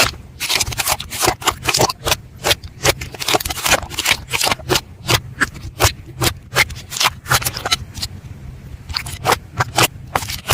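Slime being worked by hand close to the microphone, giving an irregular run of sharp clicks and crackling pops, several a second.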